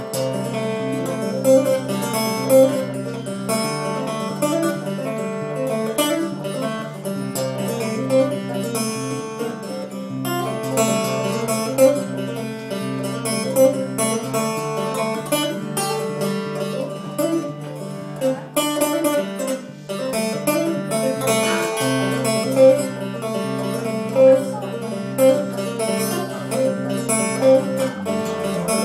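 Acoustic guitar played instrumentally: picked notes over a stepping bass line, with no singing.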